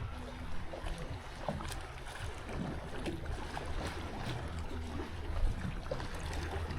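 Small water slaps and light knocks against an aluminium boat's hull, over a steady low hum.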